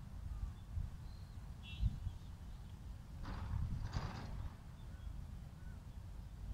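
Outdoor ambience: low wind rumble on the microphone, with two short, harsh sounds about three and four seconds in.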